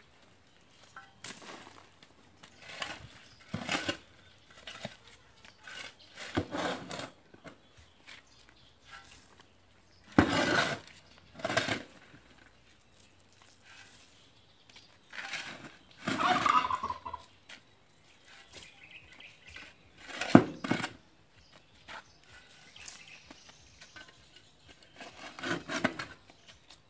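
A shovel scraping into soil and throwing it against the base of a steel-drum kiln for coconut-shell charcoal, packing earth around the drum's foot. There are about ten scrapes and dumps at irregular gaps of one to four seconds.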